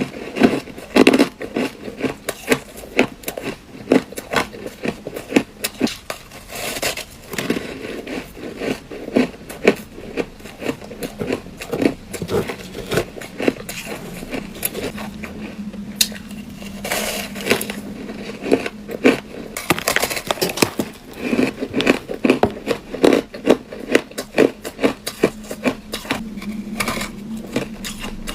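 Close-up crunching of ice being bitten and chewed: a rapid, irregular run of sharp cracks and crackles, with bursts of louder bites every second or two.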